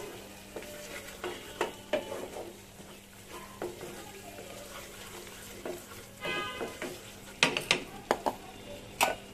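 A spatula stirring and scraping a thick masala paste of ginger-garlic, turmeric and chili powder as it fries in a nonstick pan, with a low sizzle. This is the masala being fried down before more spices go in. A few sharp knocks of utensils come near the end.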